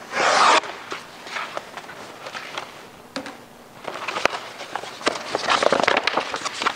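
Crackly rustling of a sheet of vinyl tint film on its paper liner being handled and flexed, with a loud rustle right at the start and denser crackling near the end. Footsteps are mixed in.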